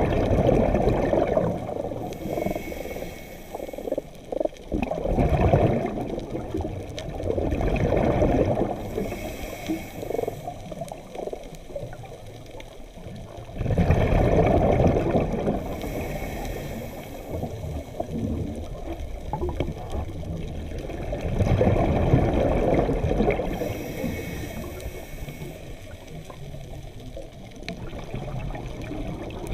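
Scuba diver breathing through a regulator underwater: a rushing burble of exhaled bubbles roughly every seven seconds, with a fainter hiss of each inhale in between.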